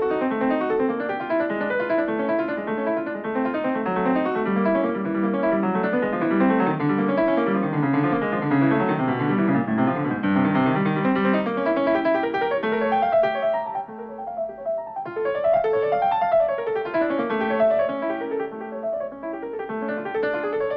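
Solo piano music playing a fast, busy passage of running notes. About two-thirds of the way through it drops briefly to a lighter stretch, then continues with runs that sweep down and back up.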